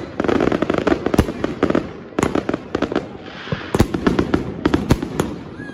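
Firework cake (multi-shot battery) firing, with a dense run of sharp bangs at irregular spacing and crackle between them, loudest in clusters about two and four seconds in.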